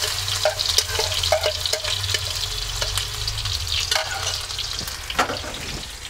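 Freshly grated apple sizzling in hot ghee in a non-stick frying pan, a steady crackling hiss with many small pops. A few louder pops come about four and five seconds in.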